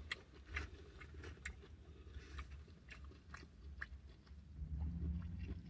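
Faint chewing of a mouthful of smash burger: irregular soft mouth clicks and smacks. A low hum joins about a second before the end.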